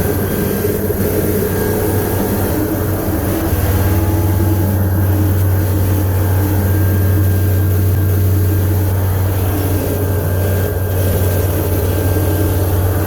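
A light propeller airplane's piston engine runs with a steady, loud drone, getting a little louder about three and a half seconds in.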